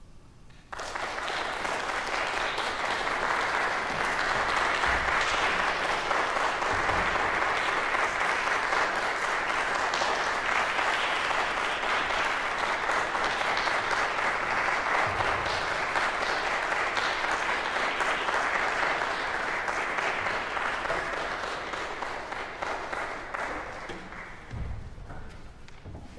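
Audience applauding, starting abruptly about a second in, holding steady, then thinning out near the end.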